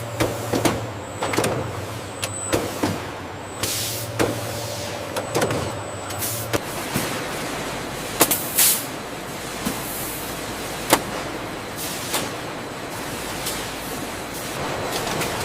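Roti factory machinery running, with frequent short knocks and clatter and brief hissing bursts over a steady low hum that stops about six and a half seconds in.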